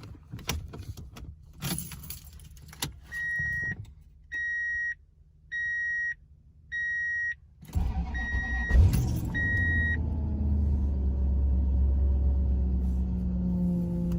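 Keys jangling, then a pickup's warning chime beeping six times, about once a second. About eight seconds in, the 2000 Toyota Tundra's engine cranks and starts, then idles with a whine that falls slightly in pitch; the owner takes the whine for a bad power steering pump.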